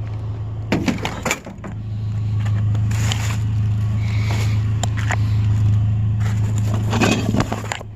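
Vehicle engine idling with a steady low hum that grows louder about two seconds in, with a few knocks and rattles about a second in and again near the end.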